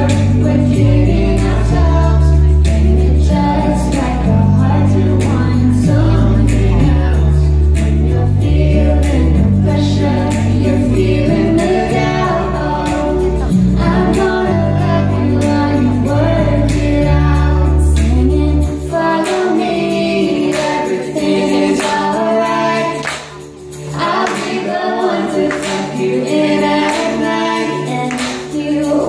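Live band music with singing voices, rehearsed at a sound check. Heavy bass notes stop about two-thirds of the way through, and the singing carries on over lighter backing.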